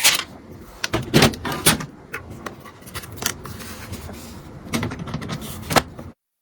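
Hands handling and fitting computer parts: a run of sharp plastic-and-metal clicks and knocks over soft rustling, about half a dozen strong ones, cutting off abruptly near the end.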